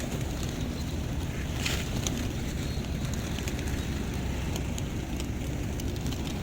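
Steady low rumble of street background noise with wind on the microphone, and scattered faint sharp clicks throughout.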